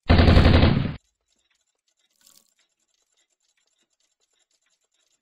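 Sound effect for an animated logo: a loud, deep hit lasting about a second that stops sharply, followed by faint scattered ticks.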